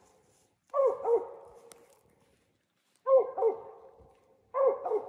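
Original Mountain Cur barking treed at squirrels up a tree, a steady chop of barks in quick pairs, three pairs in all.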